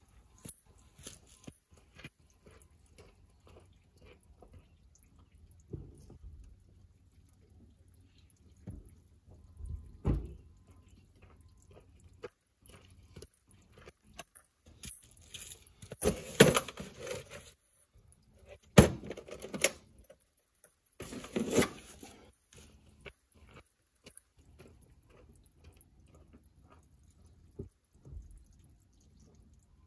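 Intermittent clicks, knocks and light clinks of hands working on the tractor with tools and parts. About halfway through come three louder, longer bursts of clatter.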